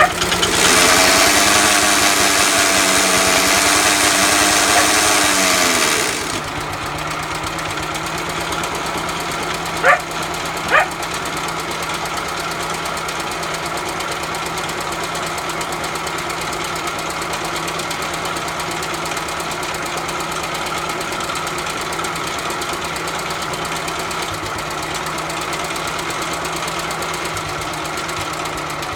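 Sturmey-Archer engine of a 1930s Ransomes motor lawnmower running. For about six seconds it runs faster and louder with a bright hiss, then it drops to a slower, steady run. About ten seconds in there are two short barks from a dog.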